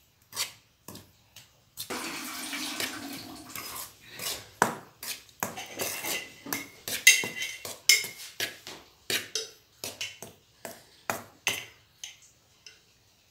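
A steel spoon stirring dry flour in a metal kadai, clinking and scraping against the pan in quick, irregular strokes. There is a longer scrape about two seconds in.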